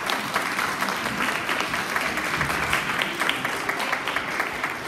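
A school assembly audience applauding steadily, many hands clapping at once.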